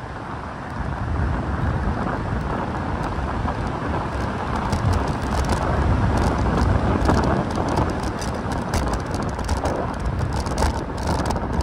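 Steady rush of wind and road noise while riding a fixed-gear bicycle, growing louder about a second in, with scattered small clicks.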